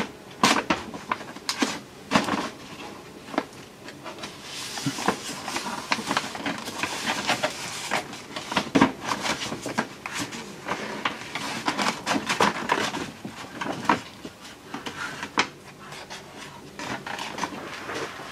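Sheet of paper rustling and crinkling as it is pressed and creased against a van's wheel arch to make a panel template, with irregular crackles and small taps.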